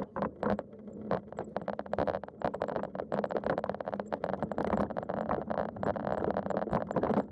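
Land Rover on the move: its engine hums steadily under a dense, irregular clatter of rattles and knocks from the body and fittings.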